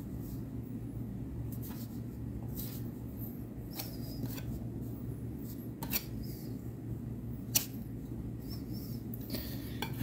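Scattered light clicks and taps from a palette knife and palette being handled, over a steady low hum; the sharpest click comes about seven and a half seconds in.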